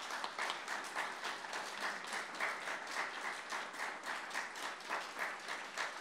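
Audience applauding, with individual claps close by standing out in a quick, steady rhythm.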